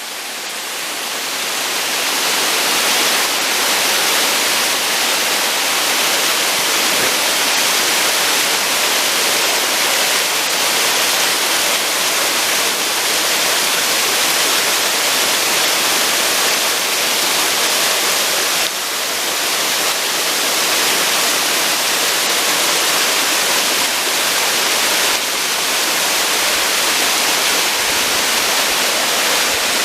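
Waterfall: a steady, loud rush of falling water, mostly hiss in the upper range, swelling over the first couple of seconds and then holding even.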